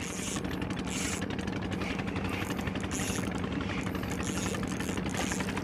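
Spinning reel cranked steadily close up, its gears whirring and ticking with a hiss that comes round with each turn of the handle, as a hooked rabbitfish is reeled in. Under it runs a steady low hum.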